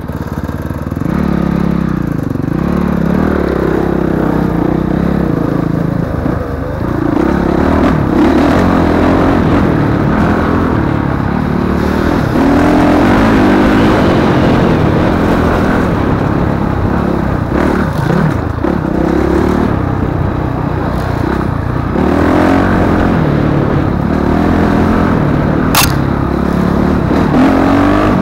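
Enduro dirt-bike engine heard up close from on the bike, revving up and down continuously as it climbs and picks its way along a rough trail, with the machine clattering over bumps. A single sharp click comes near the end.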